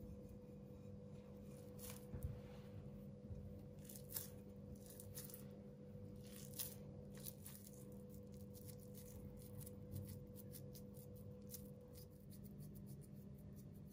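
Faint rustling and handling noise with a handful of sharper light taps spread through, over a steady low hum.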